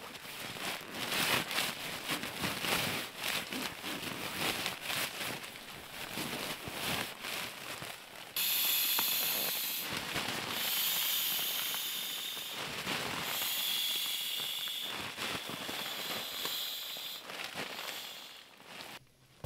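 Fire crackling with many sharp pops. About eight seconds in, a steady hiss begins abruptly, with the crackle still coming through, and it stops just before the end.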